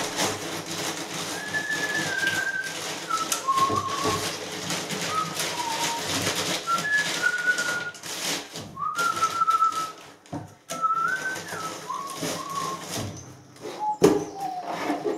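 A person whistling a slow tune, held notes stepping up and down, over steady rustling and scraping from hands working, with a couple of sharp knocks near the end.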